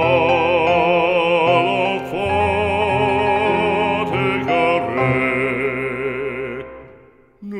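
Slow French religious song: long notes held with vibrato over sustained accompaniment, fading out near the end.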